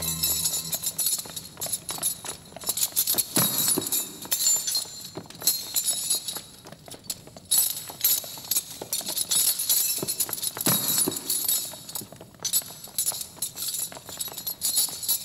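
Iron shackle chains clinking and rattling in irregular bursts, with two heavier thuds about three and a half and eleven seconds in.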